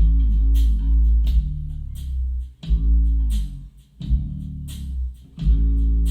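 Bass-heavy recorded music played through a hi-fi with a REL T9x subwoofer sitting directly on the floor: deep, strong bass notes in phrases broken by brief pauses, with plucked guitar notes and sharp drum hits above. The bass fills the room and sounds a bit flabby, with a particular note hanging.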